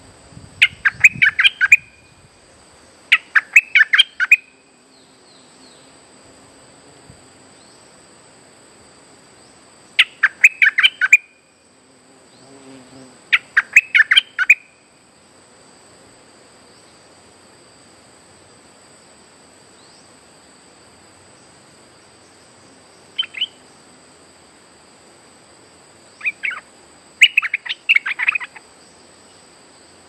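Stripe-throated bulbul singing bursts of quick, loud notes, about seven phrases separated by pauses of a few seconds, over a steady high insect drone.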